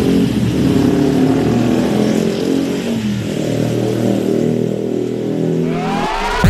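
A motor vehicle engine running loudly, its pitch wavering slightly; in the last half-second a rising sweep of electronic music comes in.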